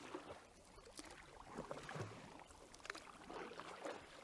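Paddle sweep strokes turning an inflatable skiff: faint, irregular splashes and drips of water.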